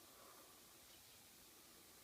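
Near silence: faint room tone and microphone hiss.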